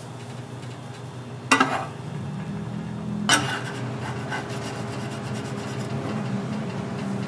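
Kitchen utensils scraping and clinking against metal cookware while souffle pancake batter is prepared, with two sharp clanks about two seconds apart. A steady low hum runs underneath and grows a little louder about two seconds in.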